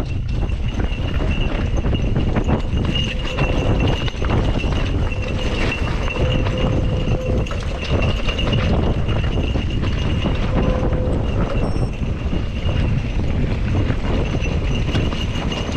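Mountain bike rolling down a rocky gravel trail: the tyres crunch and clatter over loose stones, the bike rattles over the bumps, and wind rumbles on the microphone. A thin, steady high whine sounds over it.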